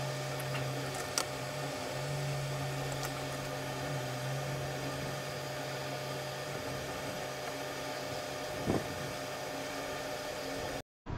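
Steady low hum under a hiss of room noise. The hum fades about two-thirds of the way through. There is a faint click near the start and a soft knock near the end.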